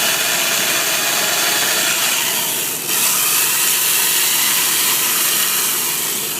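Power tool cutting and carving into a block of ice with a steady, hissing cutting noise. The noise dips briefly about three seconds in, then carries on.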